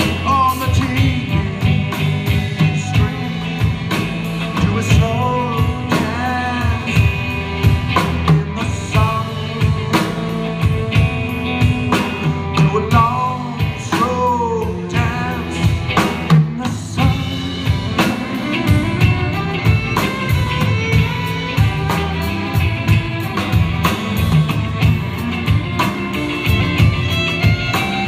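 Live rock band playing an instrumental passage: electric guitar, bass guitar and a drum kit with cymbals, with a lead line of bending notes over a steady bass and beat.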